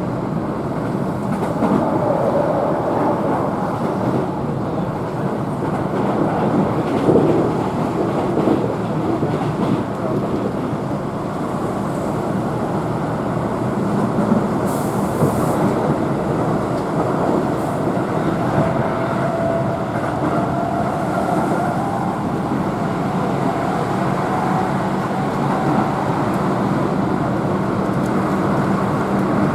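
Keihan electric train running at speed, heard from inside the passenger car: a steady rumble of wheels on rail, with faint steady tones from the running gear through the second half.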